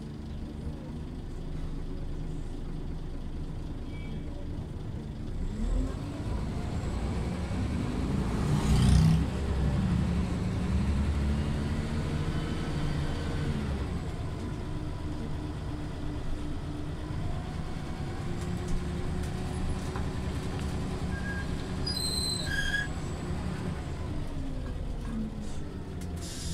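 Scania OmniLink CL94UA articulated city bus heard from inside while driving: the engine and driveline hum rises and falls in pitch as the bus speeds up and slows. A brief hiss comes about nine seconds in, and a few short high beeps come near the end.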